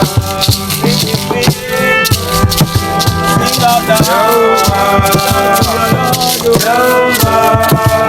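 Worship song music: held, gliding melody lines over busy, steady percussion.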